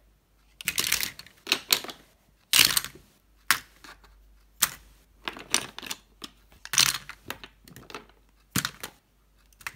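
Plastic lipstick and lip gloss tubes clicking and clattering against each other as they are handled in a wicker basket: a string of irregular sharp knocks, loudest about two and a half seconds in and again near seven seconds.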